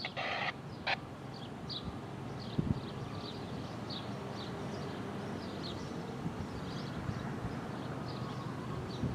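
Small birds chirping over and over, short high calls several times a second, over a steady low outdoor rumble. A brief rush of noise opens it and a sharp click follows just before a second in.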